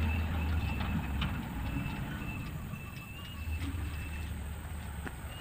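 Dump truck's diesel engine running at a low rumble as its raised tipper bed is lowered after dumping a load of soil. The rumble eases about half a second in and strengthens again near the middle, with a few light knocks.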